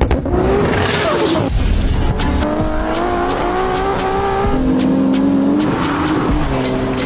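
A vehicle engine running and revving, its pitch climbing slowly and then dropping back about four and a half seconds in.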